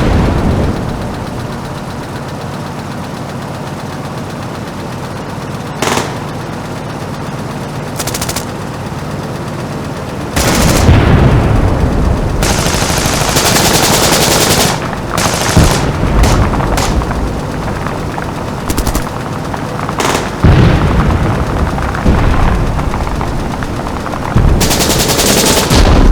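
Added battle sound effects: a low rumble with a few sharp cracks, then from about ten seconds in, loud bursts of rapid automatic gunfire mixed with heavy booms.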